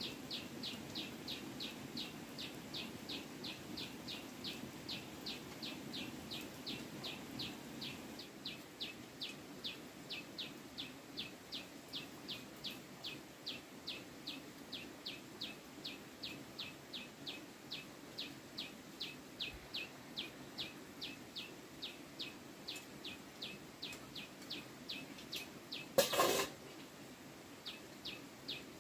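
A bird calling one short, high chirp over and over, evenly at about two and a half a second, with a brief loud rustle or knock about 26 seconds in.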